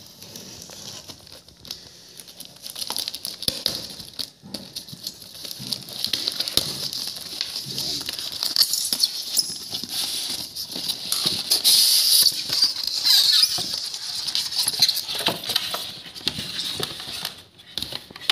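Rustling and crinkling of cardboard, paper and plastic wrapping as a boxed sewing-machine motor is unpacked, with scattered small clicks and knocks. It grows louder and busier about halfway through.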